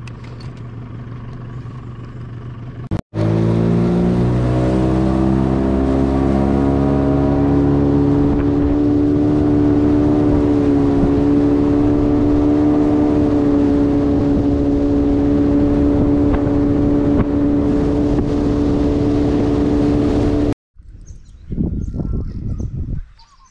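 Boat's outboard motor speeding up, its pitch rising over several seconds and then holding steady at running speed. It cuts in suddenly about three seconds in and cuts out suddenly near the end.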